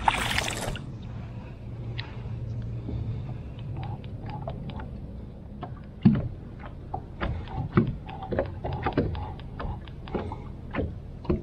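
Irregular knocks and clicks of handling in a fishing boat, after a short noisy rustle at the start. A low steady hum fades out within the first three seconds.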